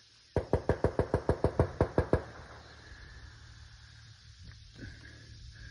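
A quick, even run of about a dozen sharp clicks, about seven a second, lasting about two seconds, then stopping.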